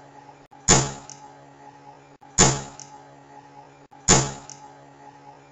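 Three sharp cracks about 1.7 s apart, each ringing briefly, from a small chamber where a spark electrode fires into an oxyhydrogen (HHO) and air mix. A steady electrical hum runs underneath.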